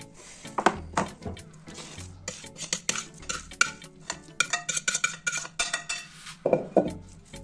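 A metal spoon scraping and clinking against a plate and a metal baking tray as a crumbly semolina dough is scooped out and spread, with a run of sharp clinks and scrapes.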